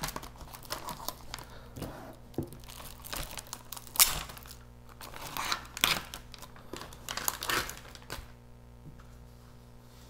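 Clear plastic film cover being peeled off the top of a microwaved frozen pizza's paper tray, crinkling and tearing in short irregular bursts that thin out near the end.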